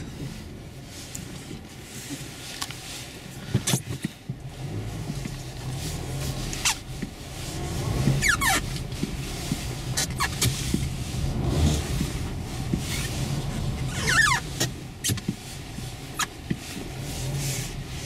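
Mazda car crawling through deep, unplowed snow on Dębica Frigo HP2 winter tyres: the engine runs low and uneven under the crunch of the tyres. Sharp knocks and quick squeaks come over and over as packed snow is thrown up against the car.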